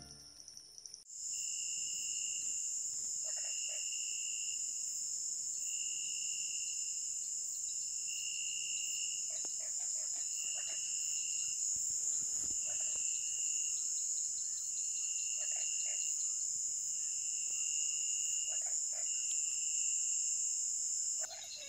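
Night insect chorus: a loud, steady high shrill trill that starts abruptly about a second in, with a lower pulsing call repeating about every two seconds.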